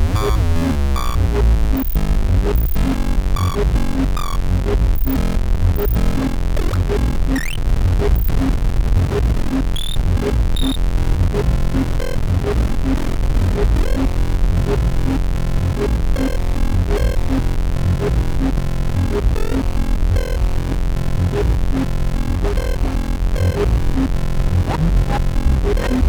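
Electronic noise music: a steady, heavy low drone under dense glitchy clicks and short pitched blips, with a brief rising squeal about seven seconds in.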